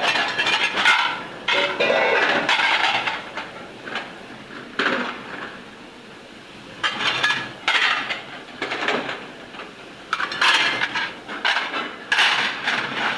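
Plates and cutlery clattering and clinking as dishes are handled, in irregular bursts with a quieter stretch about halfway through.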